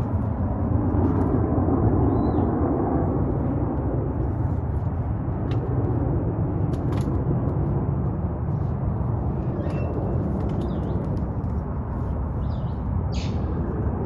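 Steady low rumbling outdoor noise with a few faint, brief bird chirps over it, one about two seconds in and another around ten seconds.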